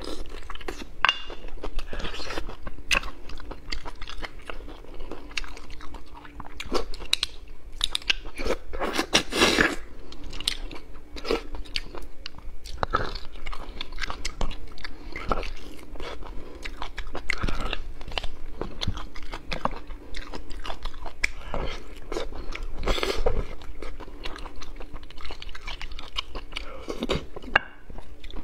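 Close-miked eating of braised beef bone marrow: irregular wet chewing, biting and mouth smacks, with louder clusters about nine seconds in and again near twenty-three seconds.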